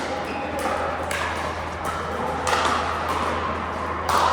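Pickleball rally: paddles striking the hard plastic ball in turn, four sharp pocks about a second and a half apart, over a steady low hum.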